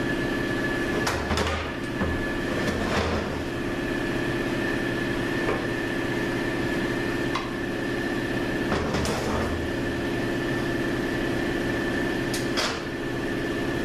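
Steady mechanical hum of workshop equipment, with a few scattered light clinks and knocks of hand tools and parts being handled on an automatic transmission case under teardown.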